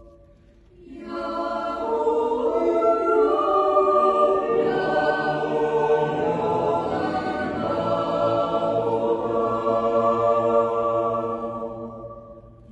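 Swiss yodel club, a mixed choir of men's and women's voices, singing a cappella in long sustained chords. The chord swells in about a second in after a brief pause, lower voices join partway through, and it fades away near the end.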